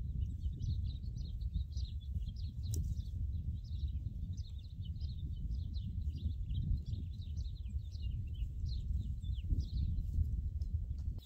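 Small wild birds chirping busily outdoors, many short high calls a second, over a steady low rumble.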